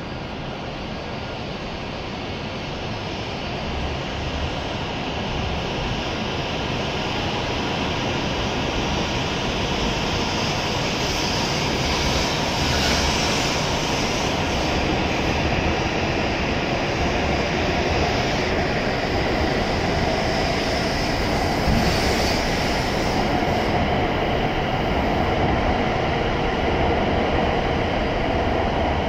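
E7 series Shinkansen train pulling out of the station, the running noise of its cars growing steadily louder as it gathers speed.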